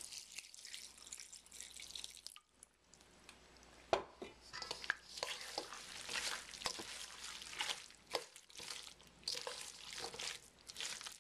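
Thick kimchi sauce of chili flakes, rice paste and vegetables, just thinned with water, being stirred with a spoon in a stainless steel bowl: a run of wet, squishy strokes, with a short pause a little past two seconds in and a sharp knock about four seconds in.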